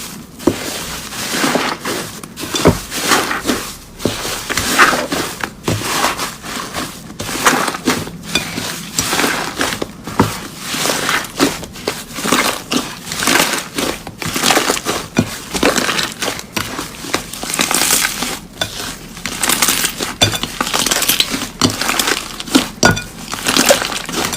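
Slime being squeezed and pressed by hand, giving a dense, irregular crackling and popping throughout.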